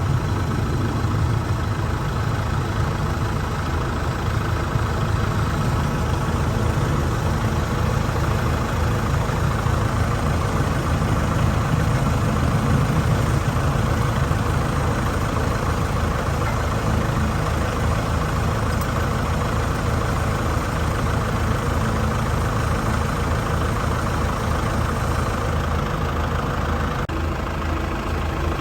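An engine running at a steady idle, even and unchanging.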